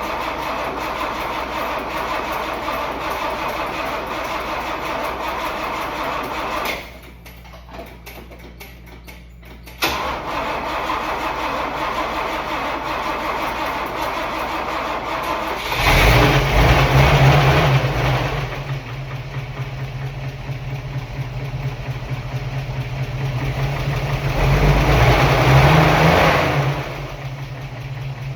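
Toyota FJ40's 2F straight-six petrol engine being cranked over by the starter, pausing for about three seconds, then cranked again until it catches about 16 seconds in. It is revved twice and idles between the revs: the first run of an engine repaired after a spun bearing.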